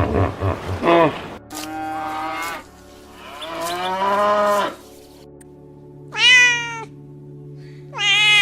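A domestic cat meowing twice, short calls that fall in pitch, about six and eight seconds in. Before them come two longer, lower animal calls.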